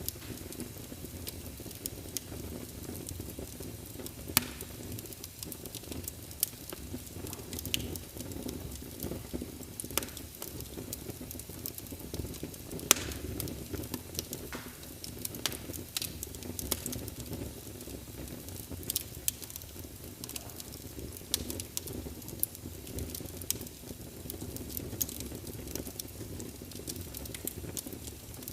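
Birchwood log fire burning with a steady low rumble and irregular crackles, a few sharper pops standing out.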